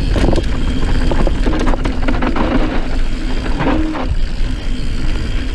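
Santa Cruz Nomad mountain bike ridden fast down a dirt trail: a steady rush of wind on the microphone and rumbling tyre and frame noise, with a few knocks as it rolls over bumps.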